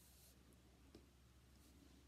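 Near silence: room tone with a faint low hum and one faint tick about a second in.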